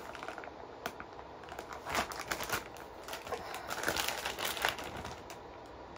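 Clear plastic bag holding a wax melt crinkling as it is handled, in irregular crackles that come in little clusters about two seconds in and again about four seconds in.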